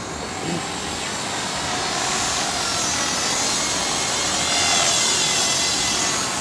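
Skyartec Mosquito electric RC helicopter in flight: the motor and rotor give a steady high whine that bends in pitch and swells about three to five seconds in.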